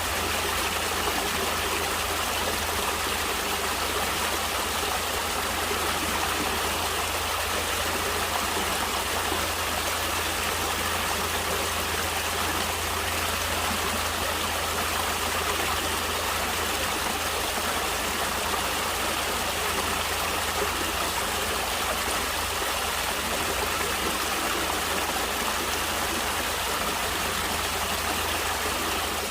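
Natural running water: a stream flowing in a steady, unbroken rush.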